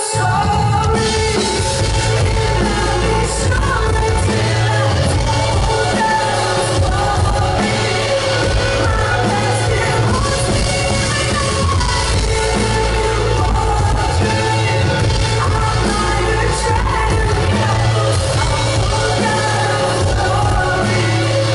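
Live pop band music played loud in a large hall, with heavy steady bass and singing over it.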